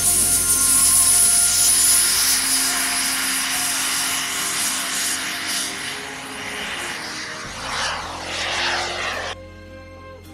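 Small model jet turbine on a large RC glider running at high power on its takeoff run: a steady high whine over a rushing hiss, loudest at first and spreading into a broad rush near the end. Music plays faintly underneath, and the turbine sound cuts off suddenly near the end, leaving the music.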